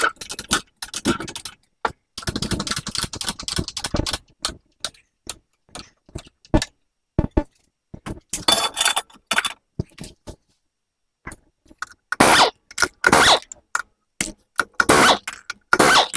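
Intermittent clanks, scrapes and rattles of tools and parts being handled, in uneven clusters of short knocks broken by sudden silent gaps.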